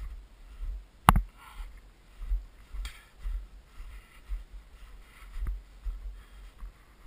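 Footsteps walking through snow at a steady pace, about two steps a second, each a dull thud with a soft scuff; a single sharp click about a second in is the loudest sound.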